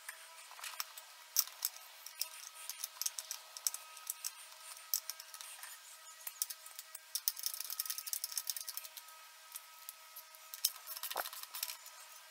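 Faint, scattered small clicks and light rustling from handling things by hand, with a denser patch of rustling about halfway through.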